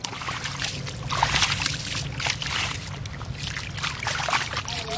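Bare feet and hands splashing through shallow muddy water, an irregular run of wet splashes.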